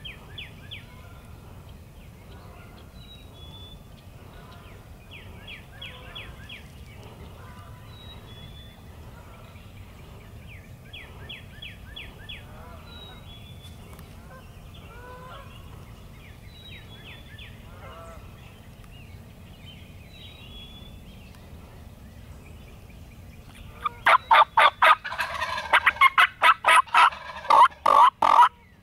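Wild turkey gobbler gobbling loudly, a rapid rattling burst of gobbles starting about 24 seconds in. Before that there are only faint short bird calls and chirps.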